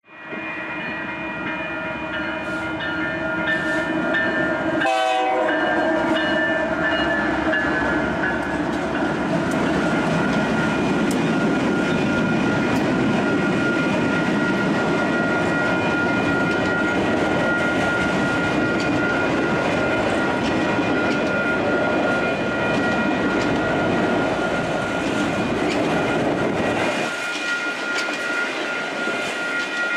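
Freight train's diesel locomotive horn sounding a held chord for the first several seconds, a horn salute, as the lead diesel locomotives come through the crossing. Heavy diesel engines and steel wheels follow, then autorack cars rattling and clacking over the rail joints, with the low engine rumble dropping away near the end. A grade-crossing bell dings steadily underneath.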